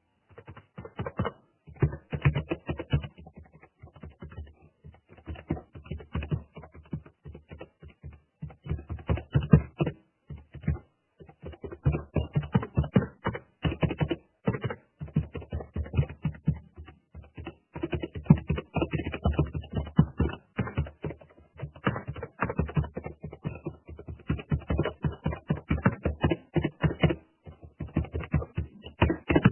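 Computer keyboard typing: rapid, uneven runs of keystroke clicks in bursts, with short pauses between them.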